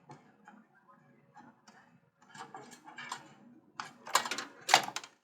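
Clicks and small plastic rattles of power-supply cable connectors being unlatched and pulled off a desktop PC's motherboard, with a few sharper, louder clicks near the end.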